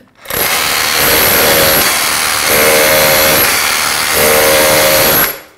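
Metabo KHA 18 LTX BL 24 cordless rotary hammer in chisel mode (rotation stop, percussion only), hammering a flat SDS-plus chisel into a hard curbstone. It runs for about five seconds without a break, with a ringing tone that comes and goes three times.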